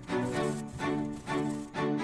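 Background music: a bowed-string melody in short notes that change about every half second.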